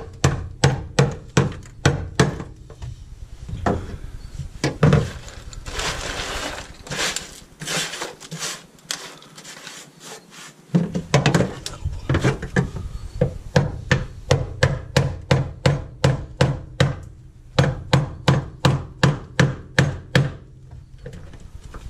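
Repeated hammer blows on a screwdriver, chipping tar-like sound-deadening mat, frozen brittle with dry ice, off a car's sheet-metal floor. The strikes come about two to three a second, with a break of a few seconds about a third of the way in that holds softer scraping.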